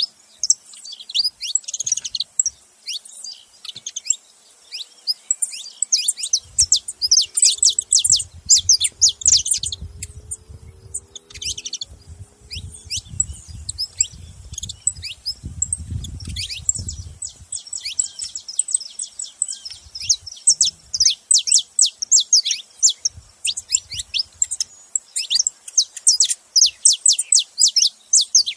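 Saffron finch (canário-da-terra) calling in rapid, nearly continuous runs of sharp, high chirps, with a short pause near the middle. A low rumble sits underneath for several seconds in the middle.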